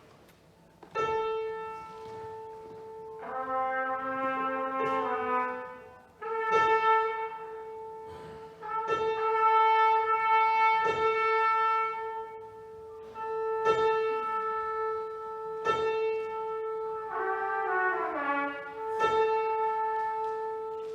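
Contemporary chamber music for clarinet, trumpet and piano. One long note is held almost throughout and broken by sharp struck attacks every second or two. A second wind line comes in about three seconds in and slides downward in pitch near the end.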